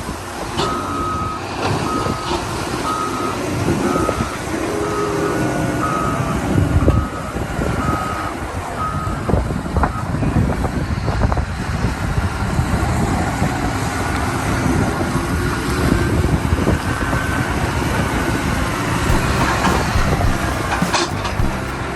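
Heavy earthmoving machine's diesel engine running under load, with its backup alarm sounding a steady series of high beeps for about the first nine seconds as it reverses.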